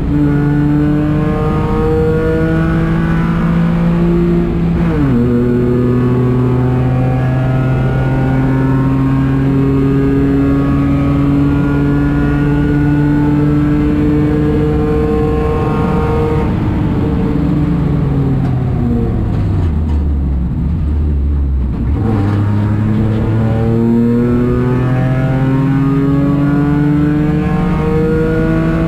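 Citroën C1 race car's three-cylinder engine under hard acceleration, with a quick upshift about five seconds in, then a long pull at high revs. About two-thirds of the way through the revs fall away in steps through downshifts, then climb again to another upshift near the end.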